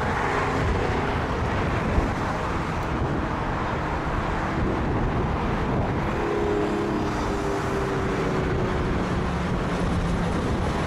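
Steady wind noise buffeting the microphone, mixed with jet airliner engine noise. A faint engine whine comes through about six seconds in.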